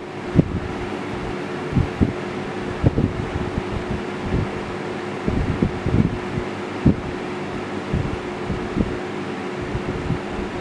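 Lasko 20-inch box fan running steadily: a rush of air with a steady hum. Irregular low buffeting from the fan's airflow hits the microphone.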